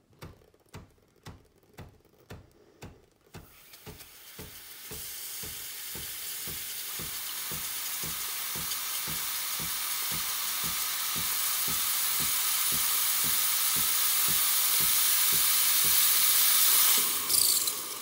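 Espresso machine steam wand purging vinegar descaling solution. The pump pulses about twice a second, then a steam hiss starts about three seconds in and grows steadily louder, with a brief surge near the end.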